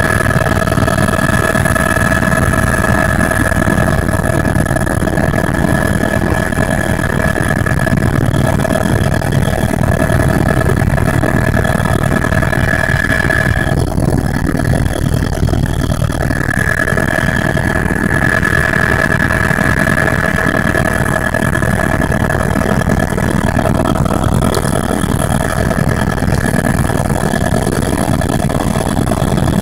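Helicopter cabin noise from inside the cabin: the engine and rotor run loudly and steadily, with a constant high whine over a dense low rumble, as the helicopter climbs away from the ground.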